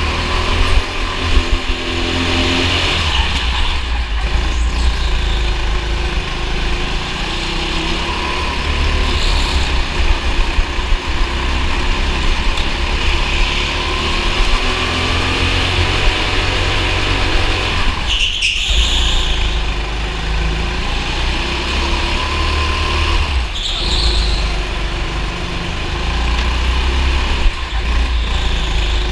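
Go-kart engine running at racing speed, heard through a kart-mounted action camera with a heavy, steady low rumble. The engine sound dips briefly twice in the second half.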